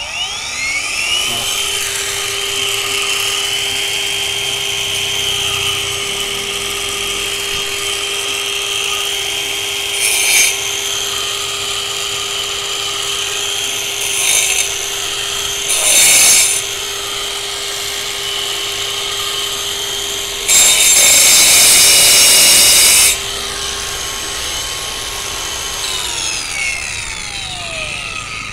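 Brushless twin-blade wall chaser spinning up, then cutting a groove up a brick wall: a steady high whine over the grinding of the blades, with several louder, harsher stretches, the longest about two-thirds of the way through. The motor winds down with a falling pitch near the end.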